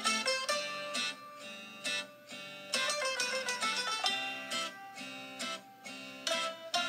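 Bossa nova background music led by plucked acoustic guitar, picking a steady run of notes.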